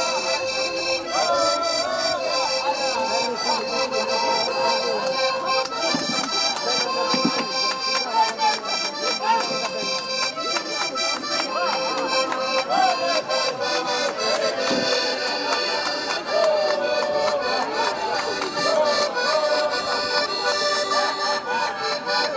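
Circassian folk dance music played on accordion, a quick melody of held notes over a steady drum beat.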